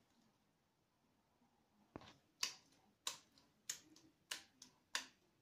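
A soft, wet patty of minced chicken and grated zucchini being slapped from hand to hand to firm it up. A regular smack comes about every two-thirds of a second, starting about two seconds in.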